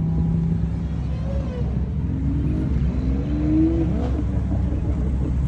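Car engines running with a steady low rumble as cars roll past; about two seconds in one engine revs up, its pitch rising for a couple of seconds.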